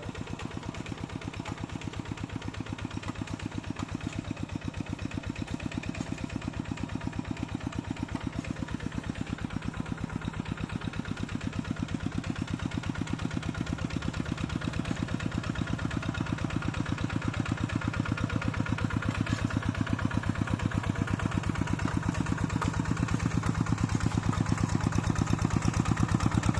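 Tractor engine running steadily with a rapid, even beat, growing gradually louder.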